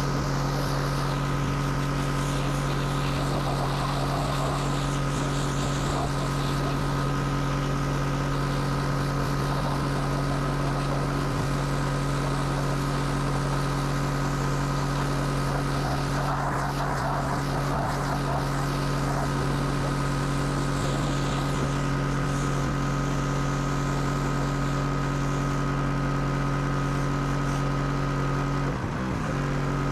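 Pressure washer running steadily, its motor holding one even pitch under a hiss of spray that swells now and then; the sound dips briefly near the end.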